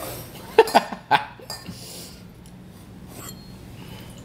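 A man's brief chuckle, three short bursts about a second in, followed by a quiet room with a low steady hum.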